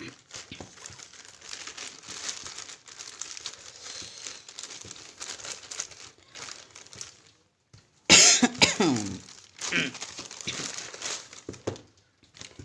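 Plastic courier mailer crinkling and rustling as it is handled and cut open with scissors. About eight seconds in a brief, loud cough-like vocal burst stands out above the rustling.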